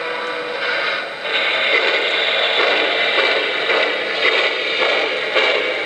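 O-scale three-rail model steam locomotive running, with a steady loud hiss of steam sound and faint clicks from the train on the track.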